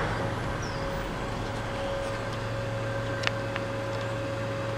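Steady low mechanical hum with a faint steady whine over it, two light clicks a little past three seconds in, and a few faint short high chirps.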